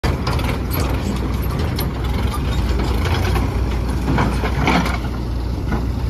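Diesel engines of a JCB 3DX backhoe loader and a tractor running steadily with a low rumble, with scattered knocks and rattles, the loudest about four to five seconds in.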